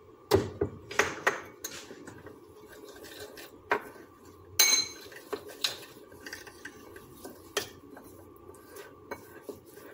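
Metal spoon stirring za'atar and olive oil in a ceramic bowl, clinking and scraping against the bowl at irregular strokes. One clink about halfway through rings out briefly.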